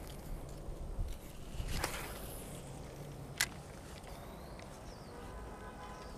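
Quiet open-air background with faint handling of a spinning rod and reel. There is a brief swish a little under two seconds in and a single sharp click near the middle.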